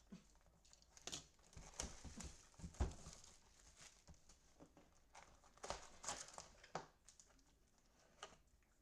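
Faint crinkling and tearing of plastic wrap and rustling cardboard as a sealed trading-card hobby box is opened: irregular crackles with a few small knocks, busiest in the first three seconds and again around six seconds in.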